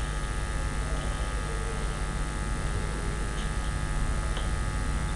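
A steady electrical hum and buzz with hiss, unchanging throughout.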